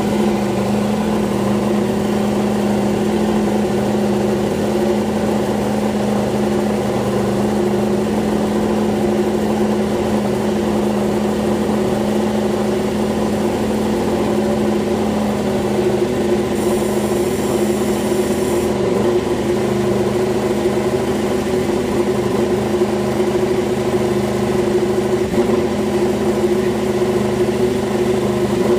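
Yamaha YZR-M1 MotoGP bike's crossplane inline-four engine idling steadily in the pit garage, with a small dip in pitch a little past the middle.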